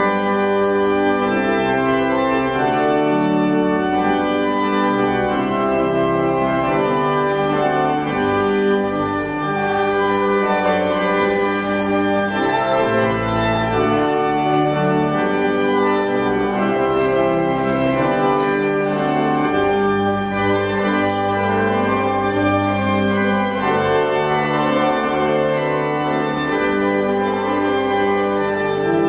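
Church organ playing a postlude of sustained, slowly changing chords at a steady level after the closing benediction.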